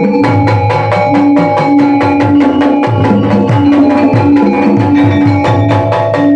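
Sundanese gamelan ensemble playing, with hand-drum (kendang) strokes in a quick, steady rhythm over ringing metallophone and gong tones.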